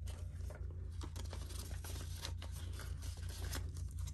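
Paper banknotes and a cash envelope rustling and crinkling in a run of small, quick crackles as the bills are handled and slipped into the envelope.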